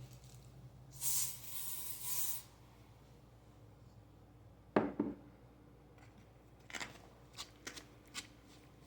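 Aerosol disinfectant spray hissing for about a second and a half, then a single knock and a few light clicks.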